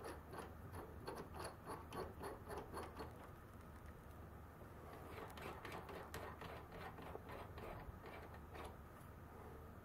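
Faint, quick metallic ticking, about five clicks a second, as a steel stud and nut are turned by hand in the T-nut of a Logan lathe's compound. It pauses and then picks up again.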